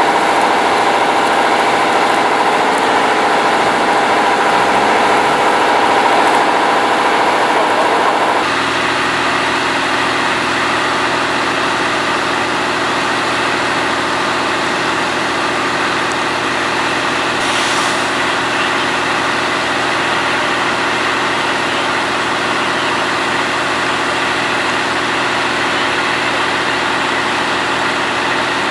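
Tatra 815 fire engine's diesel engine running steadily while it powers the water pump, with the hiss of the roof monitor's jet. About eight seconds in, the sound changes abruptly and drops slightly in level.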